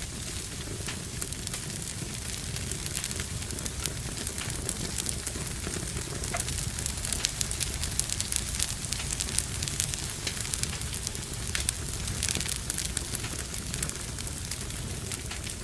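Wood fire crackling in a fireplace: irregular sharp pops and snaps, thickest through the middle, over a steady low rumble.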